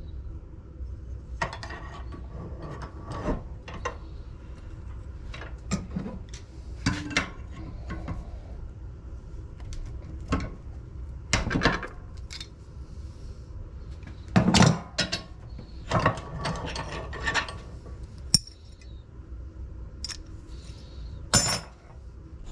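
Irregular metallic clanks and clinks of brass scrap pieces being handled and dropped into a crucible, a dozen or so sharp knocks spread unevenly over a low steady background hum.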